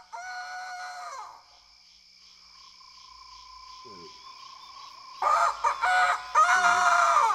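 Rooster crowing. The tail of one crow falls away about a second in, and a full crow begins about five seconds in: a few short notes, then a long held note that drops off at the end.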